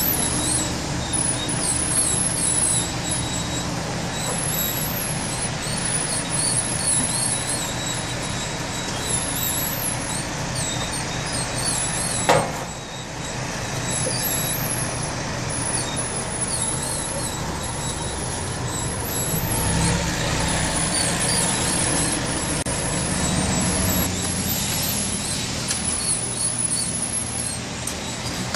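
A steady mechanical drone with a low hum throughout, and one sharp knock about twelve seconds in.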